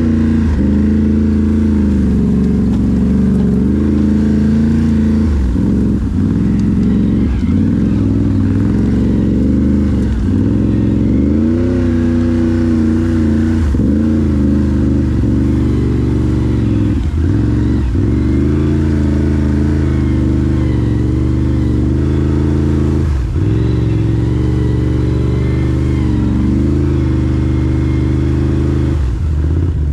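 Can-Am Renegade 1000 ATV's V-twin engine running under load on a trail, revving up and down as the throttle is opened and let off, with brief drops in engine note every second or two.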